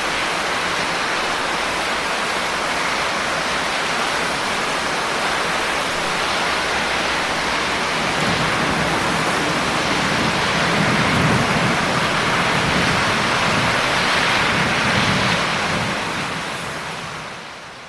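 Heavy rain falling steadily, with a low rumble of distant thunder swelling through the middle and dying away; the whole sound fades out near the end.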